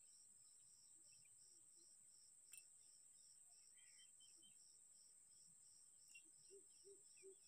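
Faint insect chorus, typical of crickets: a steady high buzz with a pulsing chirp about three times a second, and one sharp click about two and a half seconds in.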